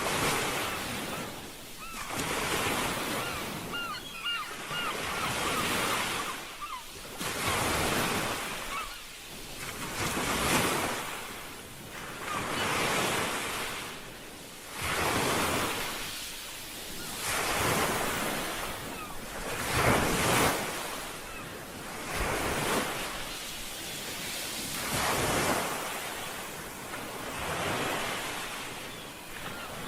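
Sea waves washing onto the shore in repeated surges, each swelling and fading about every two and a half seconds.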